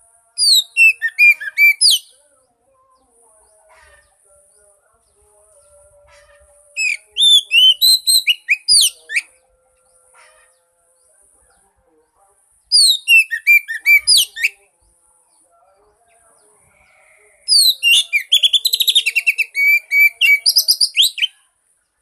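Oriental magpie-robin singing in four bursts of rapid, sweeping whistled phrases, each a couple of seconds long, with pauses of several seconds between them. A faint high-pitched buzz runs in the gaps.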